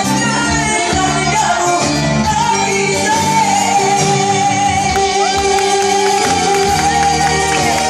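A woman singing live into a microphone over a band, holding one long note from about two and a half seconds in until near the end.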